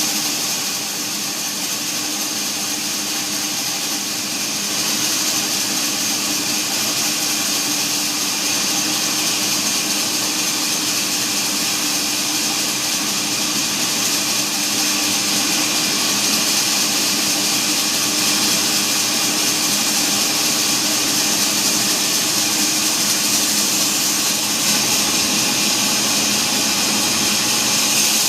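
Bandsaw cutting hardwood: a steady, continuous saw noise with a strong high hiss over a motor hum, getting slightly louder about five seconds in.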